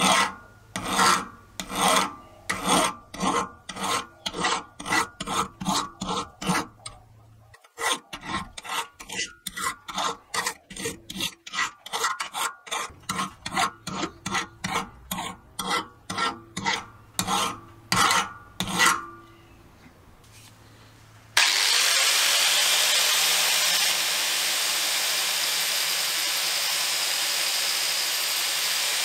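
A flat hand file rasps across a metal-plate key held in a vise, in repeated strokes at about two a second. After a short pause, an angle grinder starts abruptly about two-thirds of the way in and runs steadily as it grinds the metal.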